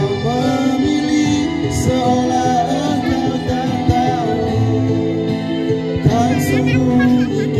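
A man singing karaoke into a handheld microphone over a music backing track.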